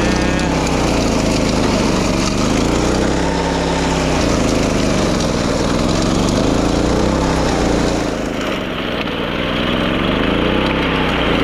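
Small gasoline engine of a wing mower (a self-propelled paddy-levee grass mower) running steadily, its pitch wavering up and down.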